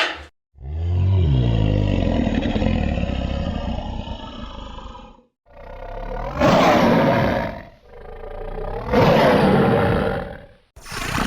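Dinosaur roar sound effects: one long, deep roar lasting about five seconds, then two shorter, louder roars, and a brief one near the end, with silence between them.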